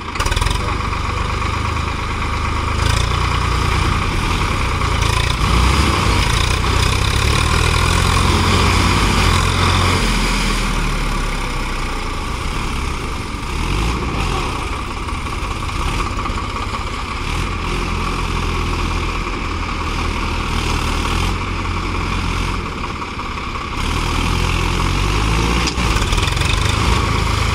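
Diesel tractor engine running hard while stuck in deep mud. Its level rises just after the start, is loudest for several seconds, eases off, then builds again near the end.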